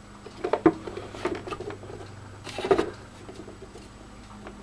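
Small plastic clicks, knocks and scrapes from handling a 1980 Cosmo Time digital alarm clock as its hinged top, which works the built-in lamp, is lifted and pressed. The loudest knock comes about two and a half seconds in. A faint steady hum runs underneath.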